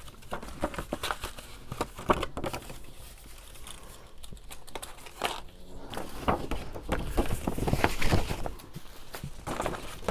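Paper envelope and cardstock being handled: irregular rustling with light taps and knocks, busiest about two-thirds of the way through.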